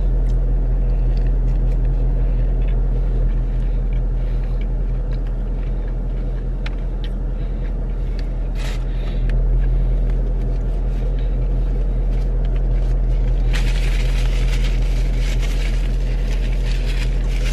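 Steady low hum of an idling car heard inside the cabin, with faint chewing of a fried chicken sandwich. From about three-quarters of the way through, a paper napkin rustles as it wipes the mouth.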